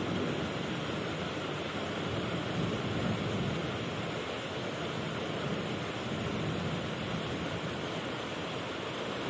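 Heavy rain pouring down in a thunderstorm, a steady even hiss.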